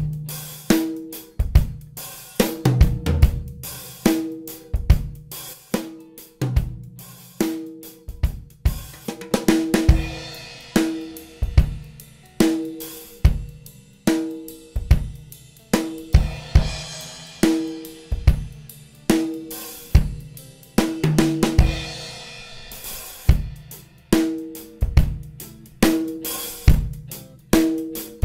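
A recorded drum kit playing a steady groove of kick, snare, hi-hat and cymbals, run through the OmniTec-67A tube preamp plugin (modelled on the Altec 1567A) on the drum bus. The cymbal wash swells up through the middle.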